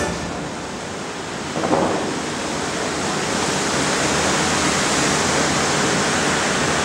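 Dubai Fountain's water jets falling back into the lake as spray and mist: a steady rushing hiss like heavy rain, with a brief louder burst about two seconds in.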